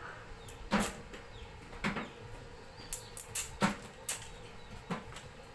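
About seven sharp knocks at irregular intervals, two of them close together about three and a half seconds in.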